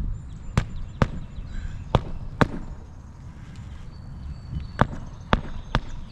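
Hammer striking a roofing nail to fasten an asphalt shingle, seven sharp blows mostly in pairs with pauses between them.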